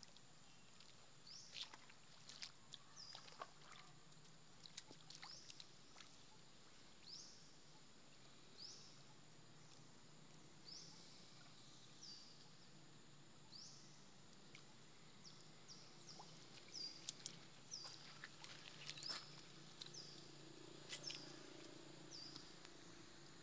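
Quiet outdoor ambience with a faint high chirp, rising in pitch, repeated about every second and a half. Scattered light clicks and small splashes come in clusters near the start and again in the second half.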